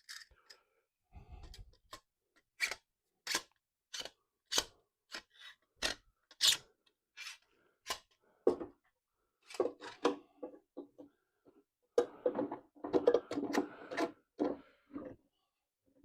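Clamps being set and tightened on a wooden frame corner: a series of sharp separate clicks, fairly evenly spaced for a few seconds like a trigger clamp being squeezed, then a busier cluster of clattering knocks near the end.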